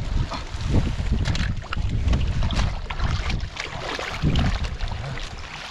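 Shallow water being splashed and sloshed by hands groping through it for catfish: irregular splashes with a low rumble underneath.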